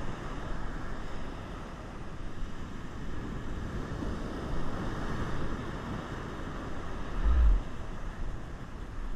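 Heavy ocean surf breaking and washing up the beach, mixed with a steady low rumble of wind on the microphone. A short, loud low thump hits the microphone about seven seconds in.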